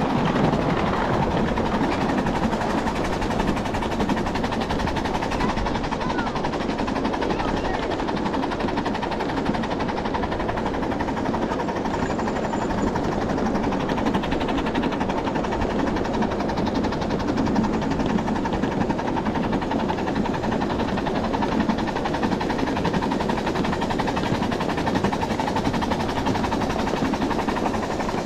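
A 7½-inch gauge ride-on live-steam train running along the track: a steady rumble and clatter of the cars rolling on the rails.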